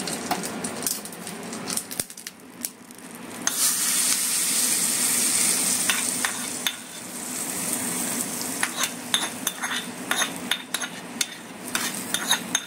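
Hot tempering oil with mustard seeds, curry leaves and a dried red chilli poured from a small tadka pan onto chutney, sizzling loudly from about three and a half seconds in and then dying down. Short clicks come before it, and a spoon clicks and scrapes against the metal pan afterwards.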